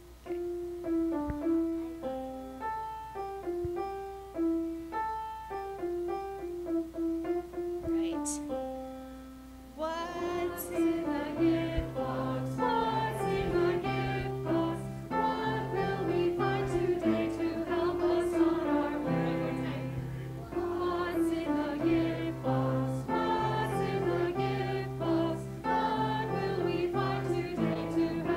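Piano plays a short, simple tune as a single melody line. About ten seconds in, a congregation starts singing the tune with piano accompaniment and low bass notes. They sing it twice, with a brief break about twenty seconds in.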